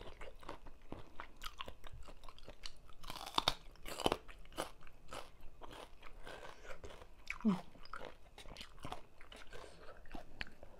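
Close-miked crunching and chewing of spicy Thai papaya salad with raw vegetables and shrimp, in many short crackles, with a brief hum from the eater about two-thirds of the way through.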